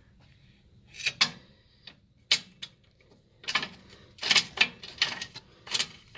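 Irregular metallic clicks and short scrapes as the threaded engine mount adjuster of a Honda CBR1000RR is turned, about eight or nine in all, closer together in the second half.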